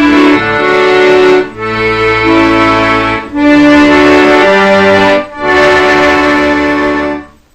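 Instrumental background music playing sustained chords in phrases, with short breaks between them, that stops abruptly near the end.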